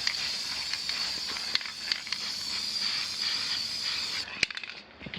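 A steady hiss with scattered faint crackles and ticks, which cuts off abruptly near the end, followed by a few sharp clicks.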